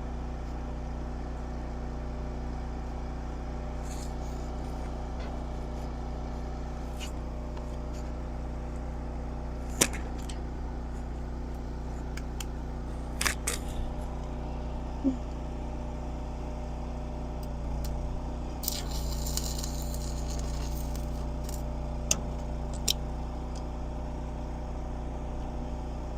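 A steady low machine hum runs throughout, with a few sharp clicks and knocks. A short hiss comes about two-thirds of the way in.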